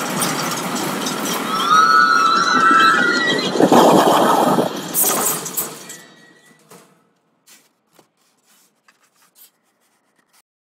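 Loud, noisy city-street ambience with a wavering high squeal about two seconds in and a louder burst near the middle; the sound fades out about six seconds in, leaving near silence with a few faint clicks.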